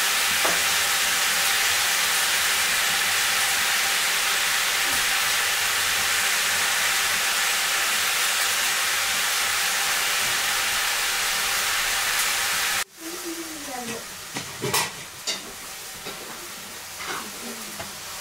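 Chayote pieces sizzling steadily as they fry in a pan over a wood fire. The sizzle cuts off suddenly about thirteen seconds in. A quieter stretch follows, with a person's voice and a few sharp knocks.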